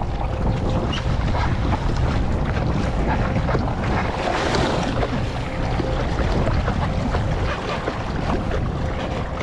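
Water rushing and splashing along the hull of a moving Hobie Mirage Lynx kayak, with wind buffeting the microphone in a steady low rumble.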